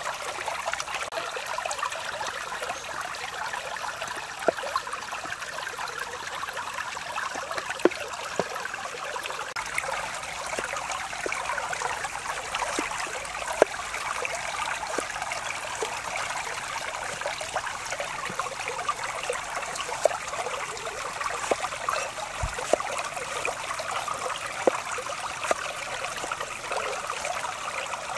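Shallow stream water running with a steady rush, with a cleaver knocking now and then on a wooden chopping board as garlic and tomatoes are cut.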